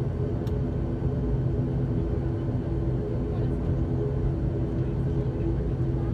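ATR 72-600's Pratt & Whitney PW127 turboprop engine and propeller running at taxi power, heard inside the cabin: a steady, even drone with a low hum.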